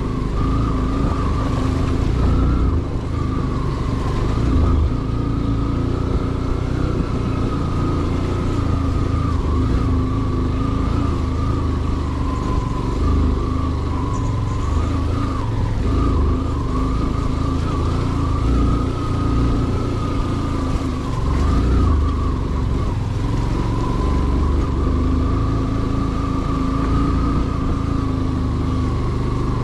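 A vehicle engine running steadily on the move: a wavering whine over a heavy, continuous low rumble of engine, road and wind noise.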